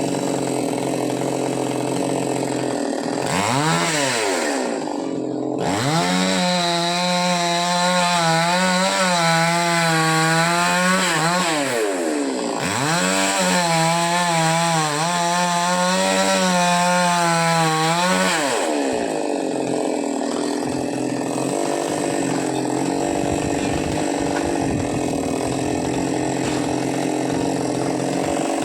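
Two-stroke chainsaw idling, blipped once, then run up to full speed twice for about six seconds each, its pitch wavering as it cuts, before dropping back to idle.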